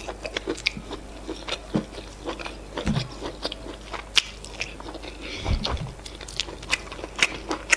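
Close-miked eating sounds: wet chewing and mouth clicks as efo riro stew and semolina fufu are chewed. Many sharp clicks run through it, with a couple of soft low thuds.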